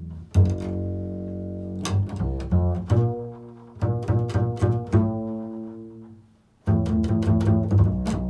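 Improvised music on a low-pitched plucked string instrument: notes and chords struck one after another, each ringing and dying away. The sound fades almost out about six and a half seconds in, then a loud new chord is struck and rings on.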